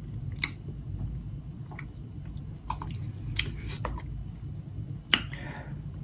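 King crab leg shells being cracked and snapped apart by hand: a few sharp cracks, the loudest about five seconds in, over a steady low hum.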